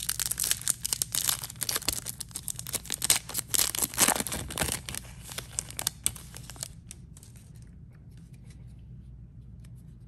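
Topps baseball card pack wrapper being torn open and crinkled, a dense crackling that stops after about six and a half seconds.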